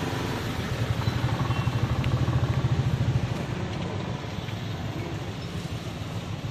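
An engine idling, a low fast throb that grows louder about a second in and eases off after about three seconds.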